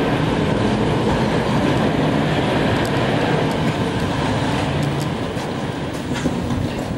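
Several wheeled suitcases rolling over paving, a steady rattling rumble with a few clicks as the wheels cross joints, easing slightly near the end.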